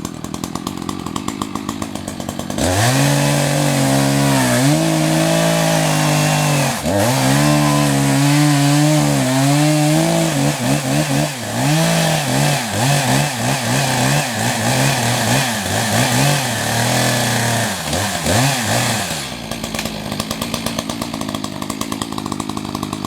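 Echo CS-590 Timberwolf 60cc two-stroke chainsaw idling, then opened to full throttle about two and a half seconds in and cutting into a tree, the engine note sagging under load. From about ten seconds the revs rise and fall rapidly as the throttle is worked on and off, and near twenty seconds it drops back to idle.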